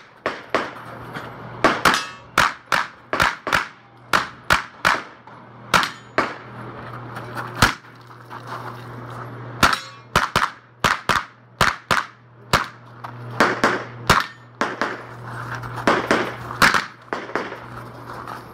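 Pistol-caliber carbine firing dozens of rapid shots, mostly in quick pairs, with a pause of about two seconds partway through. Hits on steel targets ring out between the shots.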